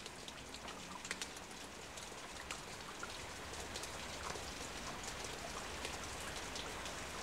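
Faint rain-like patter: scattered small ticks over a steady soft hiss, with a low rumble underneath.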